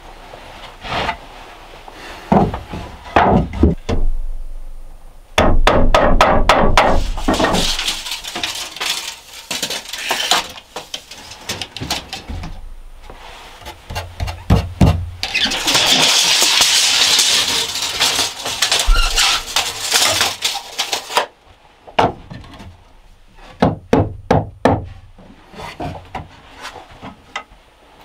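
Hand woodworking on wooden shelving: scattered knocks and a quick run of sharp taps, a few seconds of continuous rasping hiss past the middle, then groups of hammer blows on wood near the end.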